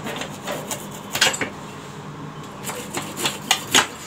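Irregular sharp clicks and light clatter of hands working at a glass-top gas stove and its metal pan supports, with a quick run of clicks in the second half.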